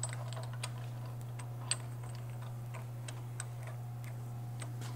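Small metal clicks and ticks, irregular and a little louder once near the middle, as a threaded steel collar is screwed hand tight onto the punch of a hydraulic hole punch. A steady low hum runs underneath.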